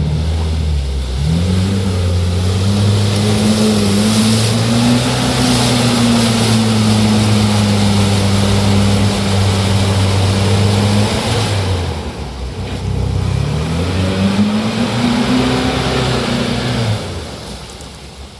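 Off-road 4x4's engine revving hard under load for about ten seconds, then easing off, revving up again and fading away, with a loud rushing noise beneath it.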